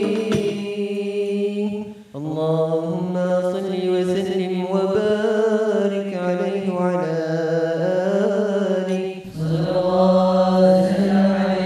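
Boys' voices chanting the closing salawat unaccompanied in slow, long held notes, with a short break about two seconds in and another near the end. Frame drums give a few last strikes at the very start, then stop.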